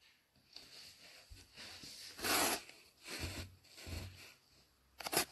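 Rustling and rubbing of a hand and clothing close to a phone's microphone in several bursts, the loudest a little past two seconds in, followed by two sharp clicks near the end.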